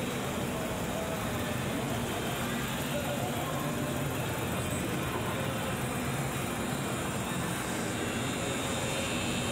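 Steady city street ambience: a continuous rumble of road traffic with faint voices of passers-by.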